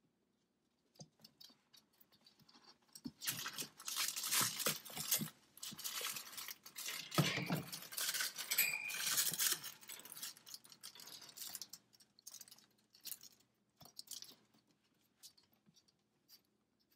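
Soft, irregular rustling and scratching of ferrets being handled in a fabric cage hammock, busiest from about three to eleven seconds in, then only a few faint clicks.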